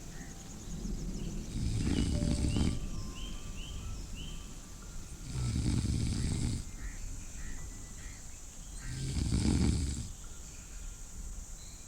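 A person snoring slowly and steadily: three long snores, one about every four seconds, with faint high chirps and thin tones between them.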